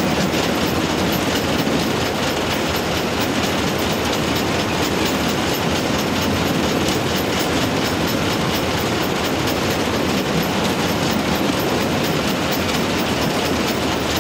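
Czech steam locomotive 423.0145 running along the line, heard from inside its cab: a steady, loud mix of engine and wheel-on-rail noise.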